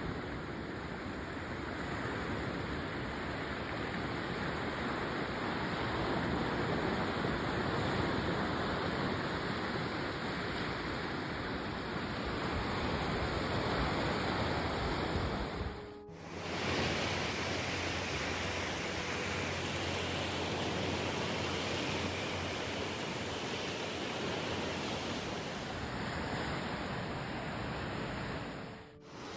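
Sea surf washing on the shore as a steady rushing noise. The sound drops out abruptly about halfway through, at a cut in the recording, then carries on.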